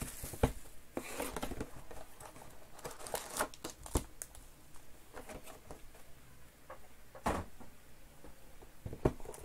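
A cardboard trading-card hobby box being opened and its foil-wrapped packs handled: crinkling and rustling of the foil, with a few sharp knocks of the box and packs on the table.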